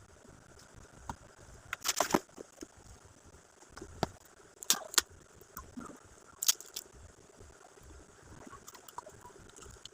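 Scattered crinkles and clicks of gift packaging being handled and unwrapped, with a cluster of louder crackles about two seconds in and sharp clicks around the middle.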